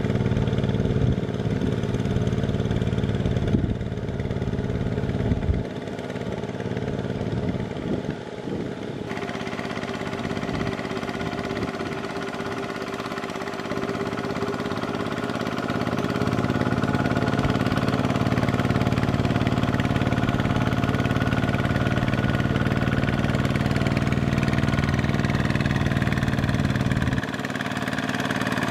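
Two-wheel walking tractor's single-cylinder diesel engine running steadily under load as its steel cage wheels churn through deep, flooded paddy mud.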